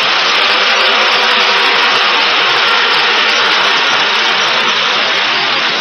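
Large crowd applauding and cheering, a steady, loud wash of noise that eases off slightly near the end.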